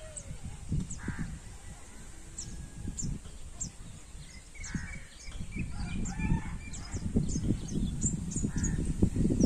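Birds calling in the trees: many short, high, quick downward chirps, with a few lower, harsher calls among them. A low rumbling noise runs underneath and grows louder toward the end.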